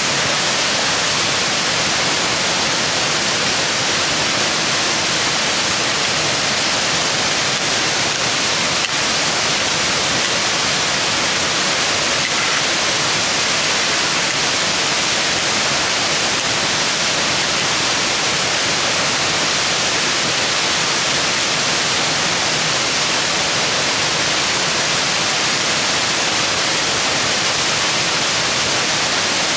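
Mountain brook rushing over rocks and a small cascade: a steady, even rush of water.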